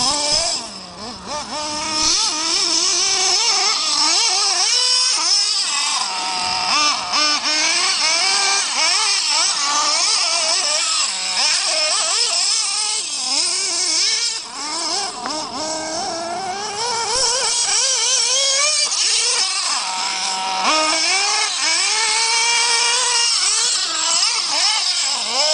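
Xray XT8 nitro RC truggy's GRP .21 glow engine with a tuned pipe, revving up and down over and over as the throttle is worked while it drives, its pitch rising and falling constantly.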